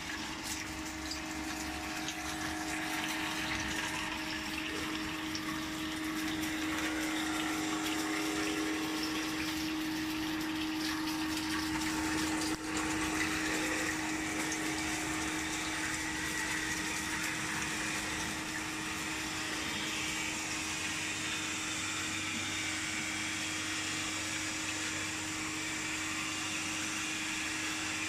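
Flake ice machine's ice generator running: a steady rush of water flowing over the evaporator drum, with a steady hum from the machine underneath.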